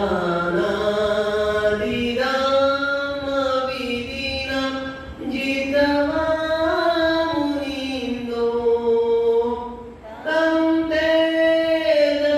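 A man chanting a Buddhist Pali recitation in long, drawn-out held notes that rise and fall slowly, pausing briefly for breath about three times.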